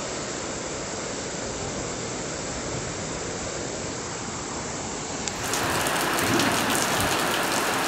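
Steady rush of heavy rain and muddy floodwater pouring down a street. About five seconds in the sound changes abruptly, becoming louder and hissier.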